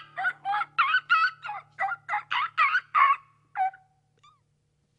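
A young woman's voice imitating a monkey: a quick run of about ten short, high calls that bend up and down in pitch.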